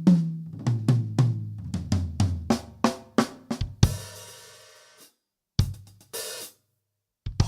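Close-miked acoustic drum kit: a quick fill of tom strokes stepping down in pitch, closing with a cymbal crash that rings out for about a second. Then a few single hits with complete silence between them.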